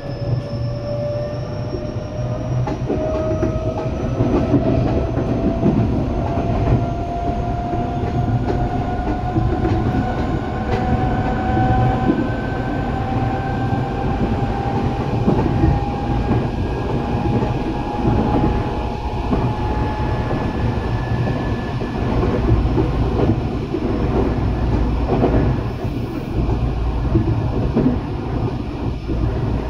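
Eidan 8000 series electric train running: a traction-motor whine rises slowly in pitch as the train picks up speed, then fades out about twenty seconds in, over a steady rumble of wheels on rail.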